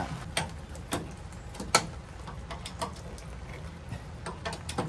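Scattered light metal clicks and clinks from a tow-hitch light mount being worked into the receiver and tools and parts being handled, with one sharper click a little under two seconds in and a few quick ticks near the end.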